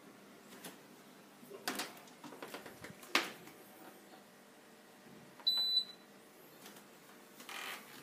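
Clicks and knocks from a Parmco integrated dishwasher's door and racks being handled, the loudest about three seconds in. About five and a half seconds in, its control panel gives a single half-second electronic beep, and a short rustle follows near the end.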